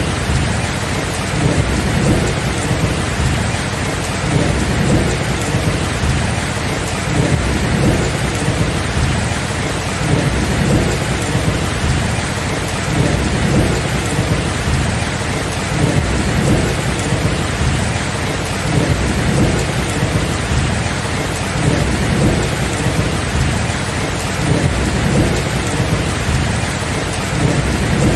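Thunderstorm: steady heavy rain, with low rolling thunder that keeps swelling and fading under it.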